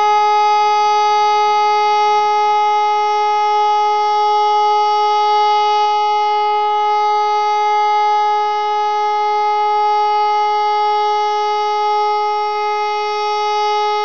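Pneumatic high-performance civil-defence siren (HLS) sounding a single steady tone that holds its pitch and level throughout: the Austrian all-clear signal (Entwarnung), the last signal of the siren test.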